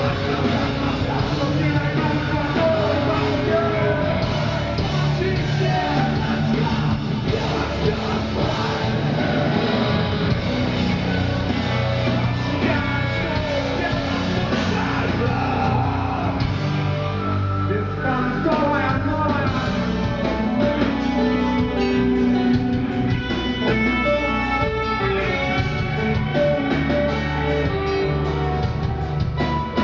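Rock band playing live: electric guitars and drums with singing, a steady, loud, dense mix.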